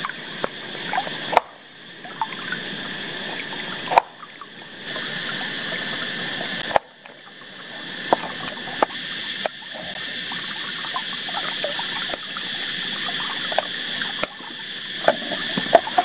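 A knife cutting carrots on a wooden cutting board gives irregular sharp taps and knocks. Behind it a shallow stream trickles and a steady high-pitched drone runs throughout.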